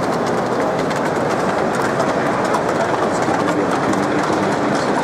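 Steady hubbub of a crowded model railway exhibition hall, with light clicking mixed in.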